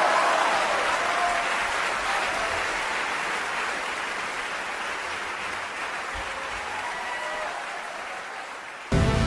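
Audience applause, slowly dying away. Near the end, electronic synthesizer music cuts in abruptly and loudly.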